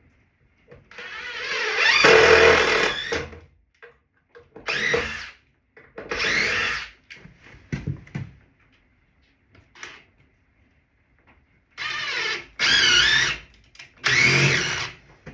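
Power drill run in about six bursts, the longest near the start; the pitch rises and wavers within each burst as the trigger is squeezed and eased.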